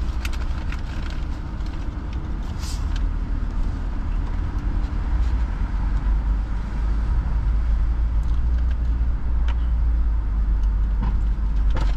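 Steady low rumble of a car's engine and road noise heard from inside the cabin as the car moves slowly.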